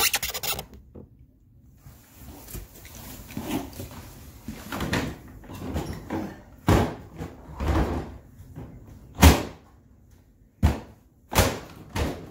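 Hard-plastic Ryobi LINK tool box being handled and pressed down onto the box below it: a short rustle at the start, then a run of irregular hollow plastic knocks and clunks, the loudest about nine seconds in. The box is being pushed to make its locks engage, but they are not catching: the owner thinks something is wrong with this box.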